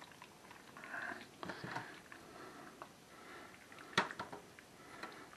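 Silicone spatula scraping a thick, creamy chicken and green bean mixture out of a glass bowl into a foil baking pan: soft wet squelches and scrapes, with one sharp knock about four seconds in.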